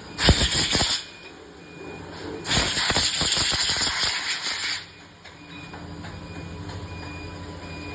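Two bursts of loud hissing from a pressurised jet: a short one under a second long, then a longer one of about two seconds. A steady low machine hum follows near the end.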